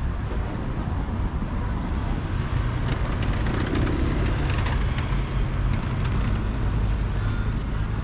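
Road traffic: cars running and passing, a steady low rumble that grows a little louder about three seconds in.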